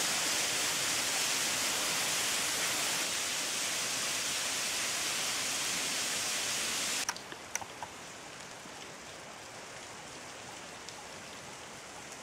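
Steady rushing hiss of water falling at a small partly frozen waterfall. About seven seconds in it cuts off suddenly to a much quieter hiss with a few faint ticks.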